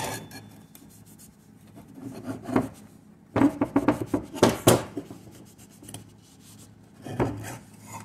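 Cloth shop rag rubbing and wiping a metal PTO mounting plate in short bursts of quick strokes, loudest a little before halfway through.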